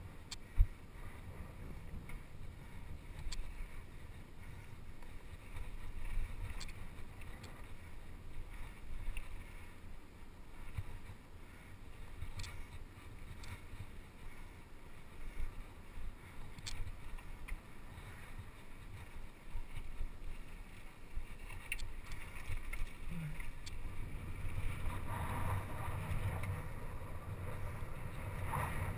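Low rumble of bicycle tyres rolling over a loose dirt track, with wind on the microphone and scattered sharp clicks and rattles from the bike. There is a hard knock about half a second in, and the rumble grows louder near the end.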